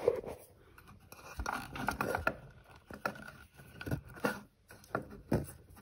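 Network cables and connectors being handled and checked by hand: scattered light clicks, taps and scrapes.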